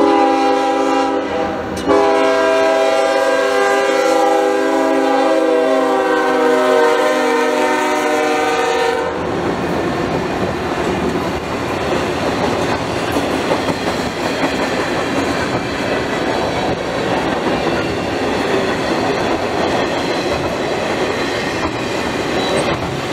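Diesel freight locomotive's multi-tone air horn sounding at the grade crossing: one blast ends about a second and a half in, and a long blast follows until about nine seconds in. Then the cars of an intermodal freight train rumble and clatter past close by.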